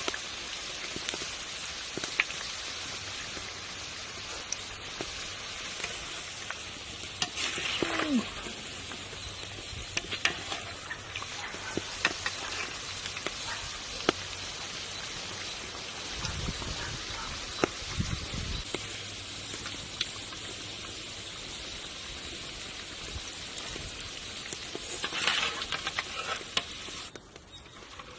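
Hamburger patties deep-frying in a large pot of hot oil: a steady sizzle with scattered sharp pops, swelling louder about a third of the way in and again near the end.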